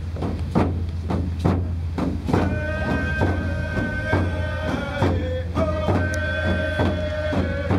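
Indigenous hand-drum song: hand drums struck in a steady beat of about two to three strokes a second, with voices singing long held notes that come in about two and a half seconds in.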